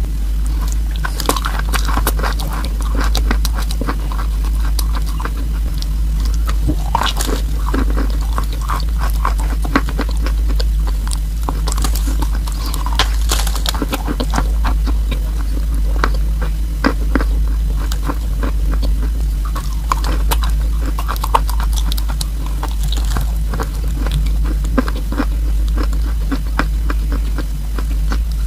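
Close-up bites and chewing of a crumbly chunk of chalk coated with paste: many small crunches and crackles, over a steady low hum.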